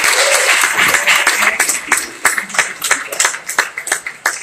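Audience applauding a welcome, a dense burst of clapping that thins out into scattered separate claps over the last couple of seconds.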